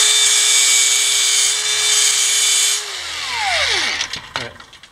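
Angle grinder grinding a seat into a steel shaft's collar so a saw blade will sit centred on it, the motor running steadily with a loud grinding hiss. A little under three seconds in it is switched off and winds down over about a second, followed by a short knock.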